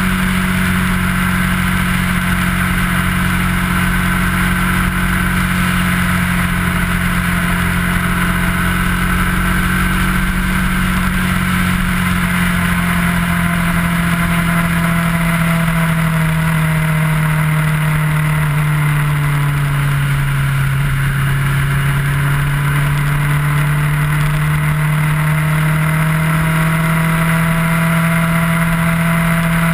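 Kawasaki ER-6f motorcycle's parallel-twin engine running at a steady cruise, over a constant rush of wind. A little past halfway the engine note slowly drops in pitch, then climbs back up.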